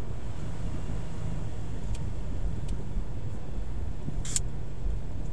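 Car driving along a country road, heard from inside the cabin: a steady low rumble of engine and tyres, with a brief hiss about four seconds in.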